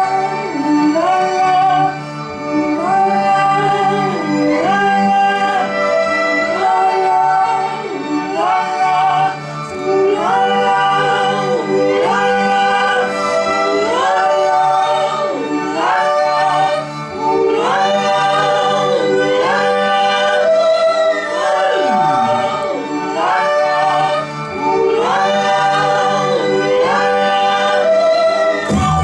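Live looped music: a short wordless melodic phrase, sung in layered voices, repeats about every two seconds over a steady low drone.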